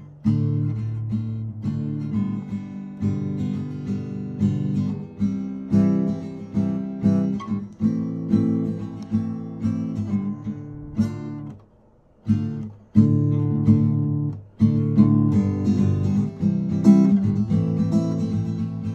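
Steel-string acoustic guitar strummed and picked in a steady chord pattern, with a short break about twelve seconds in.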